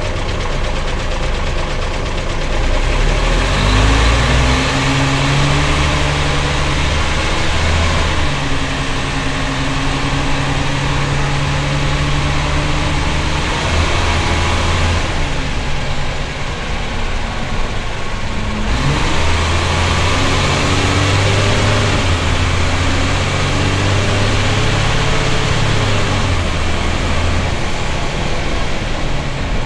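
Leyland Tiger bus's Cummins L10 diesel engine, heard from the driver's cab. It idles briefly, then pulls away, its pitch climbing and stepping down as the ZF automatic gearbox shifts up. It eases off for a few seconds midway, then accelerates through the gears again.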